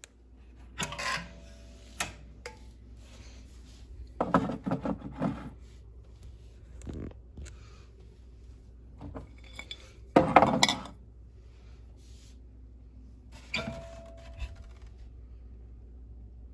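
Kitchenware being handled: clinks and clatter of dishes, containers and utensils in a few separate bursts, the loudest about ten seconds in, over a low steady hum.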